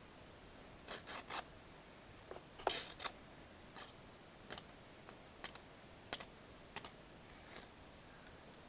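Small slip-joint pocketknife, a Rough Rider baby toothpick, slicing through material in a cut test: about a dozen short, crisp cuts at an uneven pace, some coming in quick runs of two or three.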